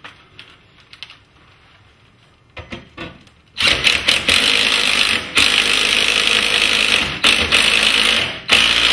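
A cordless drill driving a long lag screw through a perforated steel angle brace into a wooden door jamb. It runs loud from about three and a half seconds in, with a few short pauses; a few light clicks come just before it.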